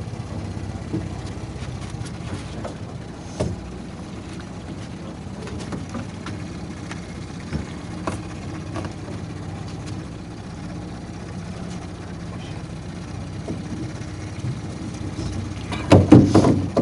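Boat motor running steadily, a low even hum, with a few faint scattered clicks and a brief louder burst near the end.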